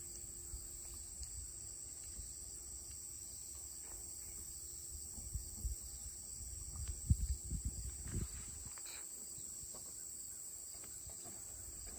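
A steady, high-pitched chorus of insects, crickets, chirring throughout. Low rumbles and a few dull thumps come in about halfway through.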